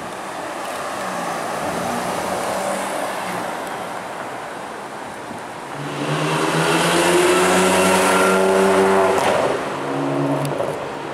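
A Ferrari California T's twin-turbo V8 drives past, swelling and fading over the first few seconds. Then, from about six seconds in, a front-engined Ferrari Maranello V12 comes in much louder with a steady engine note as it pulls away past. It dips briefly and gives a short second burst about ten seconds in.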